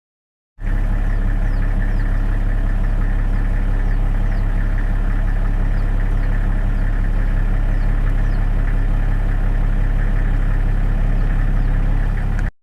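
An engine running steadily at idle, a loud even hum that starts abruptly about half a second in and cuts off just before the end.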